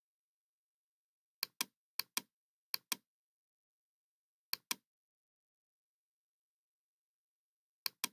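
Computer mouse clicked five times, each time a pair of sharp clicks about a fifth of a second apart: two pairs in quick succession a second and a half in, a third just before three seconds, one near the middle and one at the very end.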